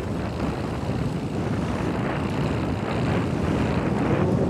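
Fishing boat's engine running under a noisy rush of wind and sea, slowly getting louder.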